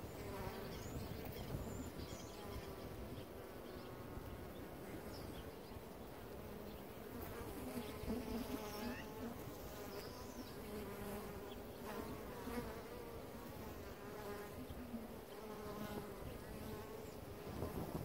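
Honeybees buzzing at the hive entrance: many wingbeats blend into a continuous hum, with single buzzes swelling and wavering in pitch as bees pass close.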